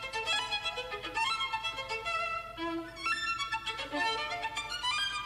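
Music: a violin playing a melody of short held notes that step up and down.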